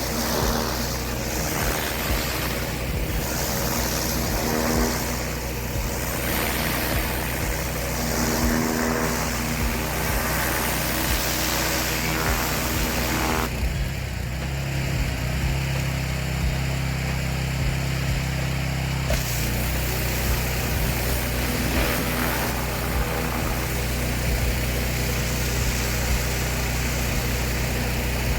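Pressure washer's engine running steadily under a broad hiss of high-pressure water spray. A little past the middle the spray stops for about five seconds and the engine note shifts, then the spray starts again.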